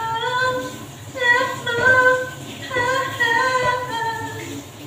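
A woman singing unaccompanied, holding long notes that slide from one pitch to the next.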